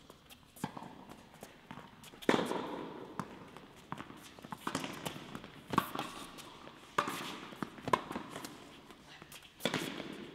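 Tennis rally on an indoor court: sharp racket strikes and ball bounces, about one a second, each echoing in the hall.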